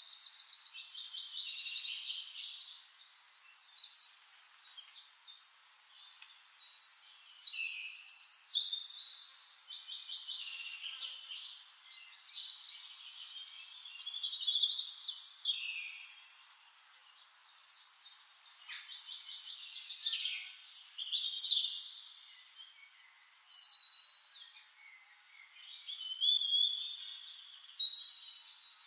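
Songbirds singing: varied phrases of quick trills and whistled notes, swelling in bouts every six or seven seconds with quieter gaps between them.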